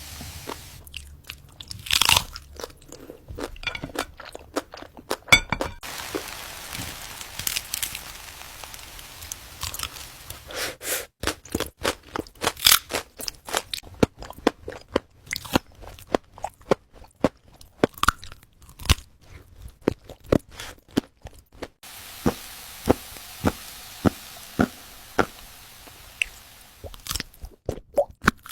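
Close-up eating of crispy fries: crunching bites and chewing, many sharp irregular crunches one after another.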